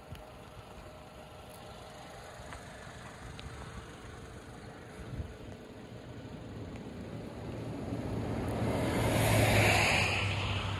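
Faint background noise, then a vehicle passing on a wet road: tyre hiss and a low engine hum build up over a few seconds, are loudest near the end, and begin to fade.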